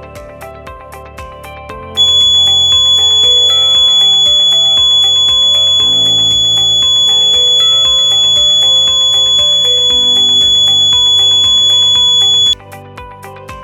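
Mini smoke detector kit's buzzer sounding one loud, steady high-pitched tone, starting about two seconds in and cutting off suddenly near the end: the alarm given when the MQ-2 smoke sensor module detects smoke or LPG gas. Background music plays throughout.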